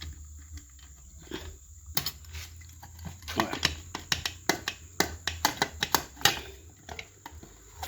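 A run of sharp, irregular clicks and knocks, about a dozen in three seconds, starting about three seconds in, over a steady low hum.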